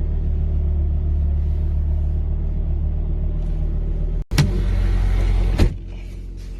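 Fiat Coupe 20V Turbo's turbocharged five-cylinder engine idling steadily, freshly started after sitting unused for weeks. It cuts out briefly about four seconds in and is quieter near the end.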